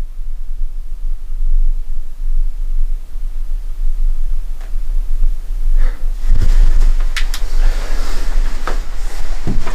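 Steady low rumble, with scattered knocks, clicks and scuffs of footsteps and movement from about halfway through.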